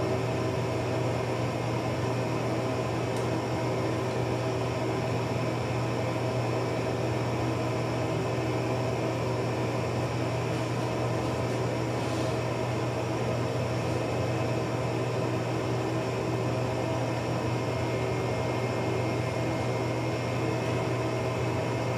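Steady low machine hum with several steady tones in it, and a couple of faint clicks about three and twelve seconds in.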